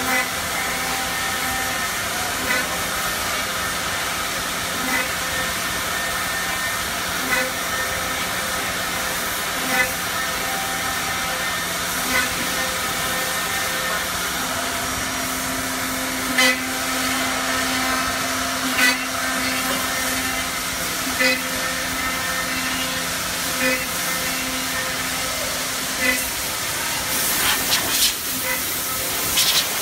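Woodmaster four-head CNC oval mortiser running, its router spindles giving a steady whine over a rush of noise. A short sharp sound repeats about every two and a half seconds as the machine works through its cutting cycle, and a cluster of knocks comes near the end.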